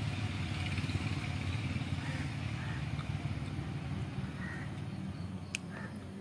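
Steady low engine-like rumble, with a single sharp click about five and a half seconds in.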